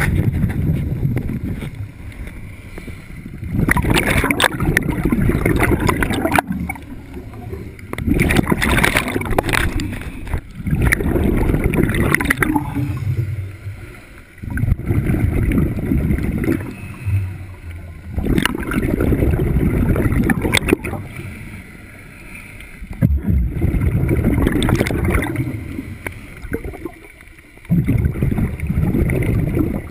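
Scuba diver's regulator breathing, heard underwater: rumbling, bubbling exhalations every few seconds, each lasting two to three seconds, with quieter gaps between them as the diver inhales.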